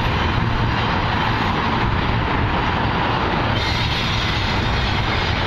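Norfolk Southern freight train's cars rolling past on the rails, a steady rumble and clatter of wheels on track.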